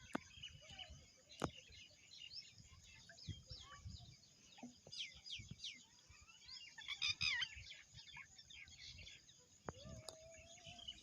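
Small birds chirping: many short, quick, downward-sliding chirps, with a dense burst of chirping about seven seconds in. A few sharp clicks break through, and there is a faint steady hiss underneath.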